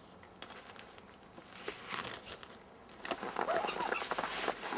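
Quiet at first. From about three seconds in, hurried footsteps in snow and the rub of a handheld camera being moved.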